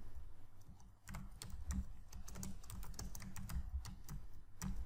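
Typing on a computer keyboard: a quick run of keystroke clicks, with a brief pause about a second in before the typing resumes.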